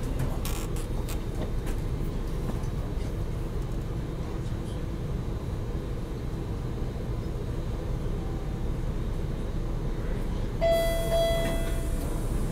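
Stationary MBTA subway car at a platform, heard from inside, with a steady low hum from its onboard equipment. Near the end a steady tone sounds together with a hiss for about a second.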